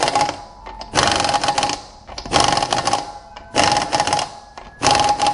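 Pneumatic impact wrench hammering on a car's wheel lug nuts in five short bursts, one nut after another, each burst a rapid rattle with a steady whine from the air motor. The wheel has just been hung back on the hub, so the nuts are being run up tight.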